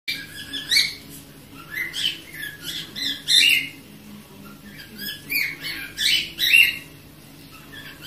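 Pet parrots calling: short squawks and chirps that bend up and down in pitch, coming in bursts of several, with lulls around four and seven seconds in.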